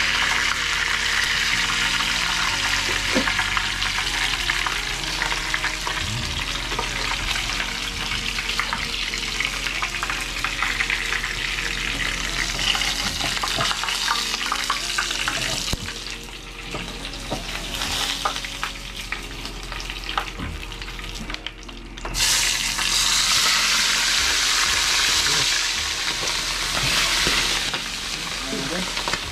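Hot oil sizzling and spattering in a small frying pan on a portable gas canister stove, with scrapes and ticks of a metal spatula as fried fish is lifted out. Well past halfway, after a brief lull, a whole squid goes into the oil and the sizzle jumps louder.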